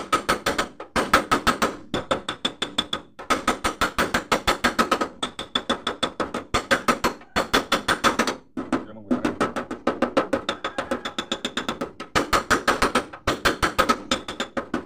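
Rapid metal-on-metal tapping on a Mitsubishi L300 van's steel door panel, with a faint ring, about seven or eight blows a second in runs of a second or so with short pauses. The dents are being tapped out with hand tools held against the panel, without damaging the paint.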